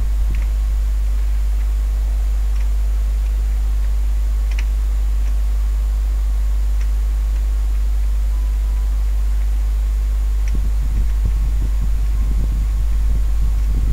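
Steady low electrical hum with a faint hiss, with a few faint clicks. Irregular low rumbling joins from about ten seconds in.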